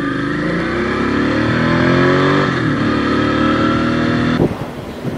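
Motorcycle engine accelerating, its pitch rising steadily, dropping at a gear change about two and a half seconds in, then pulling on again. It cuts off about four seconds in and gives way to wind noise on the microphone.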